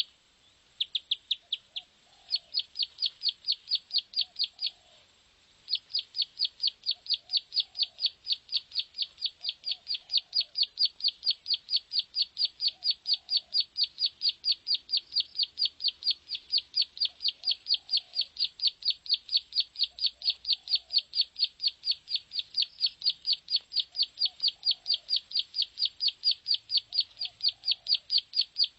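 Plain prinia (prenjak sawah) song used as a lure call: a rapid, even string of high chirping notes, about four or five a second. The string breaks briefly just after the start and again for about a second around five seconds in.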